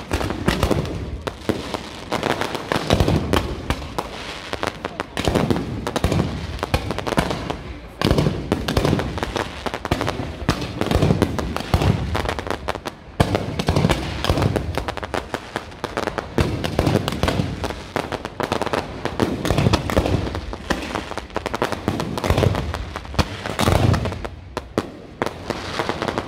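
Fireworks display in full barrage: a dense, unbroken run of bangs from shells and mortars, with crackling between them.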